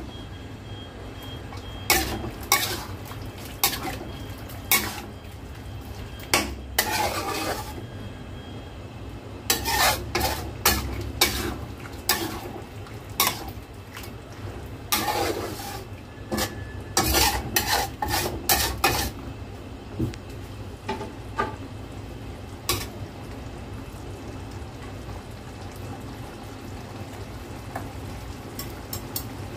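Metal spatula scraping and clanking against a stainless steel wok as a saucy seafood stir-fry is stirred, with a steady low hum underneath. The strokes come in quick clusters and thin out after about twenty seconds.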